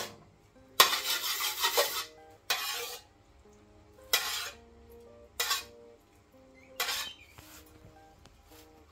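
Metal ladle scraping and stirring in a steel wok, in five strokes, the first and loudest about a second long, the others shorter.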